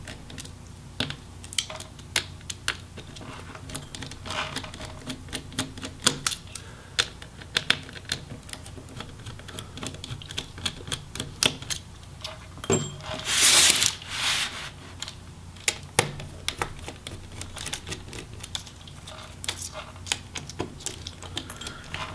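Small irregular clicks and taps of a Phillips screwdriver working the hinge screws out of a laptop's hinges, with a louder scraping rustle about thirteen seconds in.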